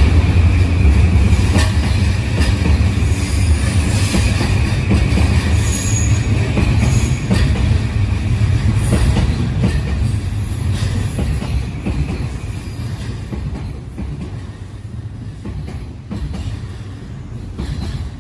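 E235-1000 series electric train running along the platform: heavy wheel-on-rail rumble with a thin, steady high squeal from the wheels in the first half, the whole sound fading gradually toward the end.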